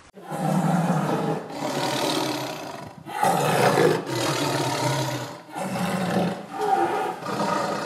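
Tiger roaring over and over: a run of about six rough, drawn-out roars, each a second or so long, starting abruptly.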